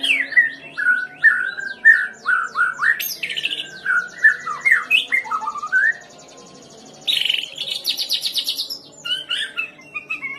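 White-rumped shama singing a varied song of whistled notes, quick slides and rapid trills, packed with borrowed phrases. About seven seconds in comes a loud stretch of harsh, buzzy, rapidly repeated notes.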